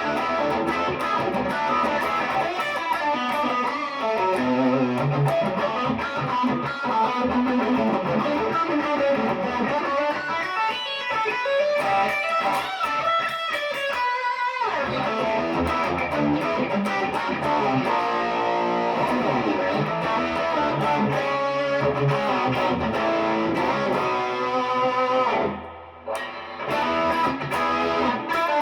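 PRS Special Semi-Hollow electric guitar being played: a continuous run of notes and chords, with a brief break near the end.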